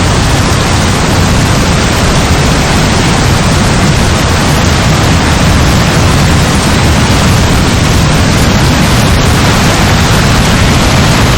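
Heavy rain falling steadily: a loud, dense, unbroken hiss with a deep low end.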